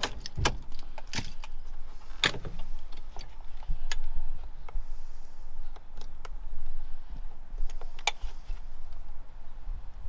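Small hand-work clicks and knocks of plastic and metal parts at a Fiat Ducato's steering-wheel hub as it is taken apart. The clicks come irregularly, the loudest about two seconds in and again near the end.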